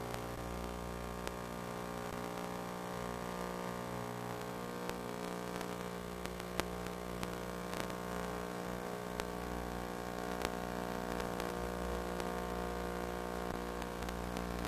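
Steady electrical hum made of many stacked tones, with scattered clicks of static.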